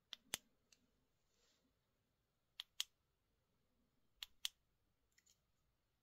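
Small, sharp plastic clicks from a Nitecore Thumb keychain flashlight being worked in the hand, coming in quick pairs: three clear pairs, then a fainter one near the end.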